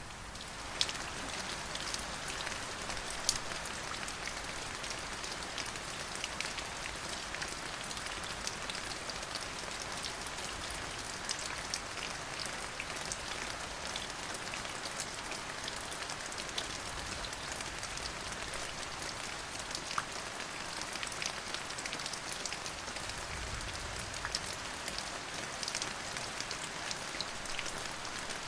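Steady rain falling, with many individual drops ticking sharply on a surface over the even hiss.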